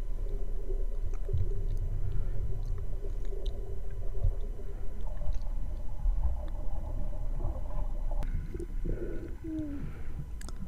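Muffled underwater sound picked up by a GoPro held under the water while snorkeling over a coral reef: a steady low rumble of moving water with gurgling and a few faint clicks. Faint wavering tones come and go in the middle and near the end.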